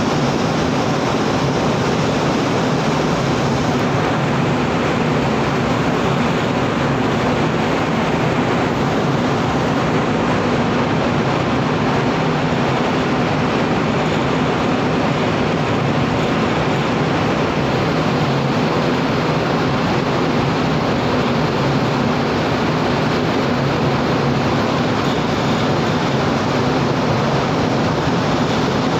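Steady rushing noise with a low, even hum underneath, unchanging throughout: the ambient sound on deck of a cargo ship under way, its engine droning beneath the rush of air and water.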